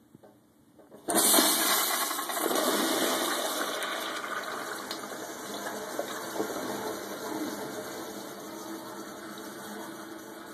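Toilet flushing: a sudden rush of water about a second in, slowly dying away as the bowl empties.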